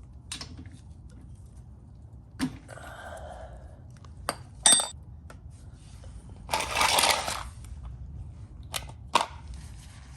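Metal hand tools being handled: scattered clinks and knocks, one clink that rings a little under five seconds in, and a rattle lasting about a second a couple of seconds later.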